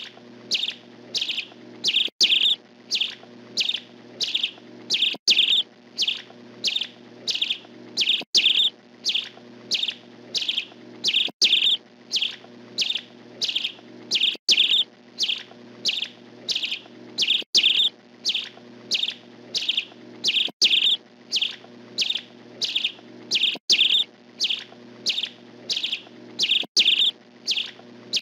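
A songbird chirping over and over in short, high calls, about two chirps a second, repeating evenly.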